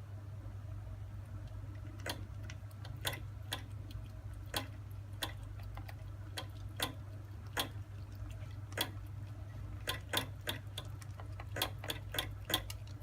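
Scottish Fold kitten feeding, making sharp irregular clicks about one or two a second, more of them close together near the end, over a steady low hum.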